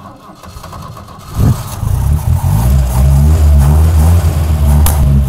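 Motorcycle engine catching about a second and a half in, then running loud with a deep, steady note.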